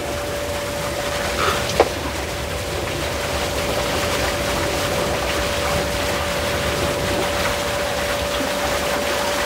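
Intex sand filter pump running steadily in filter mode, a continuous hum with one steady tone over the rush of water. A single sharp click about two seconds in.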